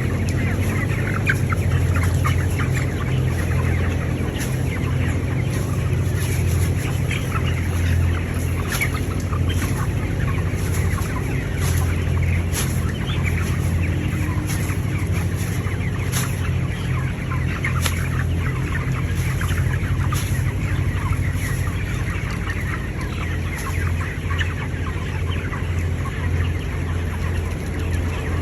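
A large flock of broiler chickens in a poultry shed, many birds clucking and cheeping at once, with scattered sharp ticks. Beneath them runs a steady low hum, typical of the ventilation fans in an environmentally controlled (EC) broiler house.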